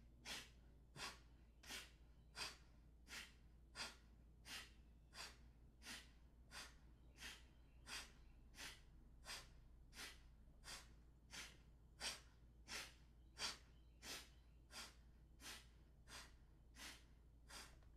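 Alternate-nostril Kapalabhati breathing: short, forceful exhalations through one nostril at a time, with the other nostril pinched shut by the fingers. The puffs come at an even pace, about three every two seconds.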